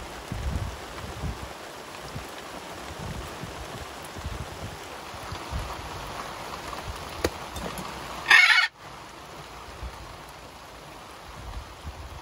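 Steady rain falling, with one loud, brief macaw squawk about eight seconds in that cuts off suddenly.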